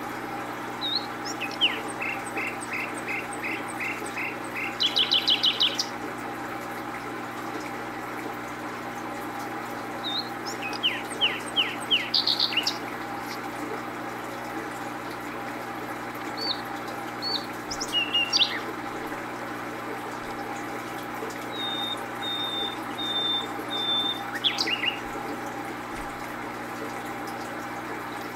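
A small bird singing short phrases of quick, high chirps and trills every few seconds, over a steady background hum.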